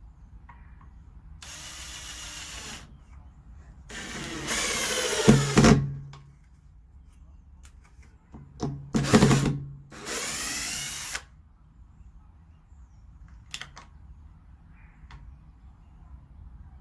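Power drill running in four short bursts, its motor pitch rising and falling as it speeds up and slows, with small clicks and knocks between the runs.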